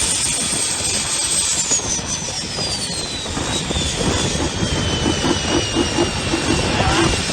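Turbocharged Isuzu 4JJ1 diesel of a longtail racing boat running hard, with a high whine that falls steadily in pitch; in the second half its firing pulses become more distinct.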